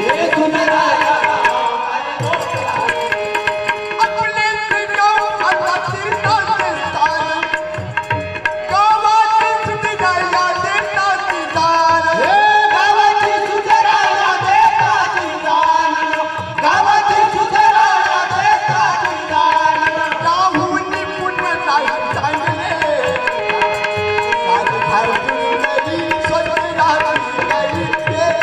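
Marathi devotional bhajan music: male voices singing over a harmonium, with tabla drumming and khanjari frame drums keeping a steady beat.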